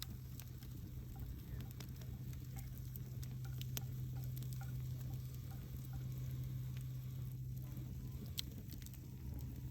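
Wood fire crackling, with irregular sharp pops scattered throughout, a couple of them louder, over a steady low hum.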